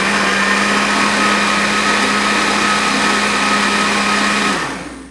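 Countertop blender running steadily on a liquid pudding batter, its motor giving an even hum under the whir of the mixing; it is switched off and winds down near the end.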